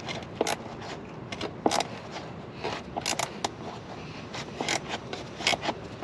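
Scattered light clicks and taps of hands working an air line loose from its fitting.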